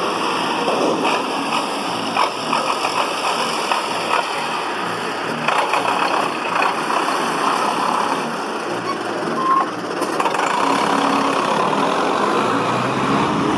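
A Zetor 7211 tractor's four-cylinder diesel engine running steadily at low revs while it creeps forward pulling a trailer, with a few light clicks mixed in.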